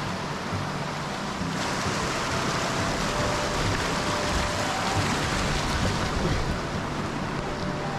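A fast, silty mountain stream rushing and splashing over rocks, a loud steady rush that grows fuller about a second and a half in.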